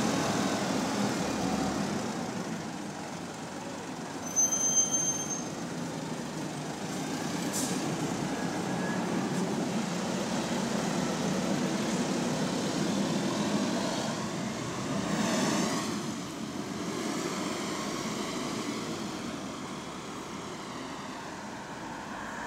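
Single-deck bus pulling away and receding, its engine and low-pitched hydraulic cooling fan fading over the first few seconds and then running on more faintly. A brief high squeal about four and a half seconds in, and another vehicle passes about fifteen seconds in.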